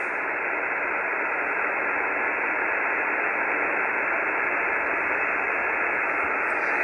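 Steady hiss of band noise from a ham radio's speaker on 14.300 MHz upper sideband, with no station coming through. The hiss is even, with its top end cut off sharply.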